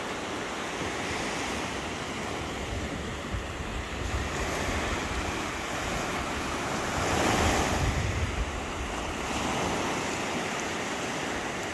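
Ocean surf breaking and washing up the sand at the shoreline, with wind rumbling on the microphone; a louder wave wash swells up about seven seconds in.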